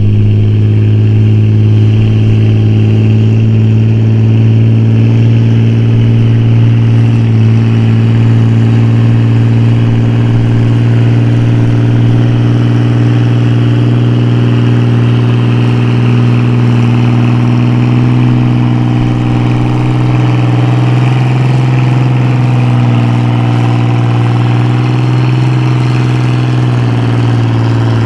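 Pulling farm tractor's engine running loud and steady, its pitch holding level with a few slight dips and recoveries.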